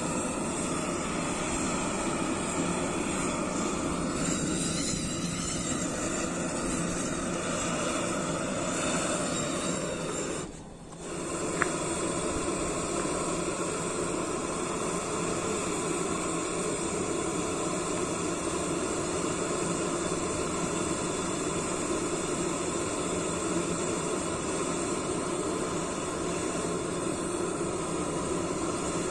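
Gas stove burner running with a steady hiss under a wok of diesel being heated. The sound dips briefly about ten seconds in, and a single sharp click follows a second later.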